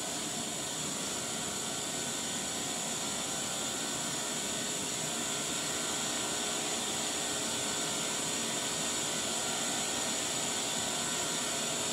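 Steady hiss with a faint hum: a television playing a silent stretch of VHS tape between trailers.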